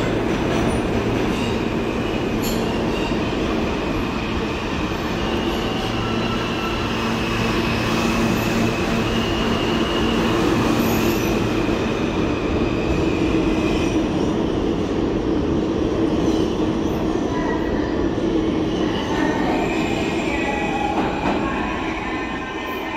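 R160 subway train running along the platform, its steel wheels squealing on the rails in high tones that come and go over a steady rumble. The noise eases off a little near the end.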